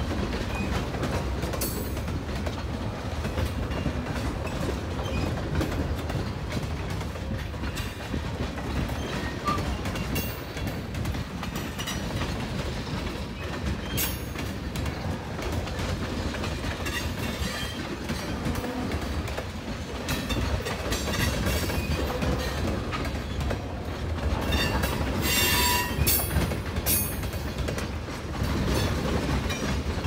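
Freight cars of a manifest train rolling past close by: a steady rumble of steel wheels on the rail. A few short, high wheel squeals cut through, mostly a few seconds before the end.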